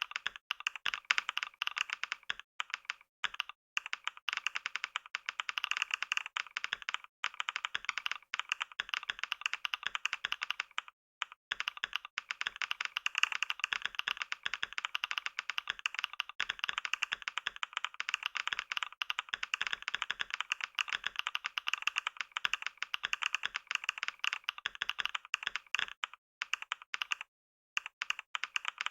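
Computer keyboard being typed on fast and without letup: a dense stream of key clicks at typing-test speed, with a couple of brief pauses, one about eleven seconds in and one near the end.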